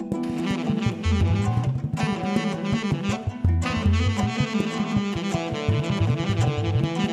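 Instrumental jazz music: a saxophone-like lead melody over bass and a drum kit keeping a steady beat.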